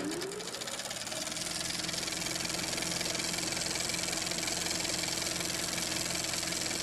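A steady, engine-like humming drone with a fast, even buzzing pulse, its pitch rising briefly at the start.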